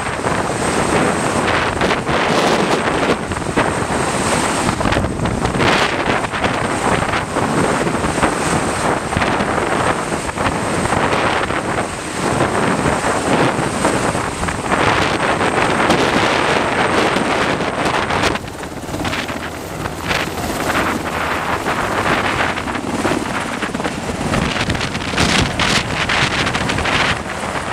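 Strong wind buffeting the microphone: a dense, steady rushing noise with a faint high whine through its first two-thirds. The level drops slightly at a cut about two-thirds through.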